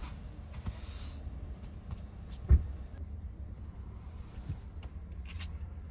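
A fabric stuff sack being handled on a padded car bed, with rustling in the first second and a single loud dull thump about halfway through, over a steady low rumble.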